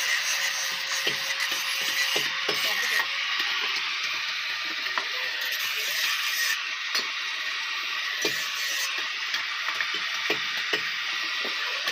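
Steady mechanical scraping noise with scattered light clicks, from metalworking on a hand-made hasua blade.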